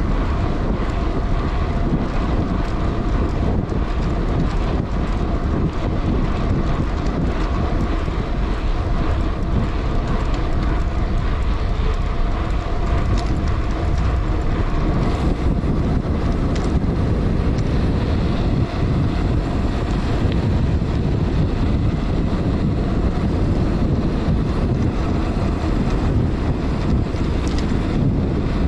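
Wind buffeting the microphone of a bicycle descending a paved road at about 26–28 mph, over the steady hum of 650b knobby gravel tyres rolling on asphalt.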